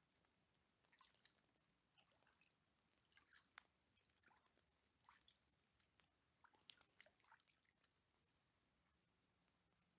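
Near silence with faint, scattered small clicks and ticks over a faint steady hiss.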